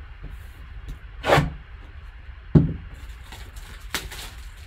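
Hands handling a shrink-wrapped trading card box: swishes and crinkling of the plastic wrap, with a sharp knock about two and a half seconds in.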